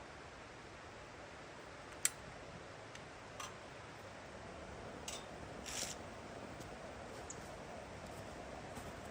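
Campfire crackling: a few sharp, irregular pops and snaps over a faint steady hiss, the loudest pop about two seconds in.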